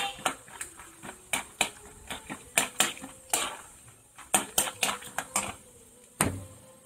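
A ladle stirring peanuts deep-frying in oil in a metal kadai, clinking and scraping against the pan in irregular sharp knocks, with a duller, heavier knock about six seconds in.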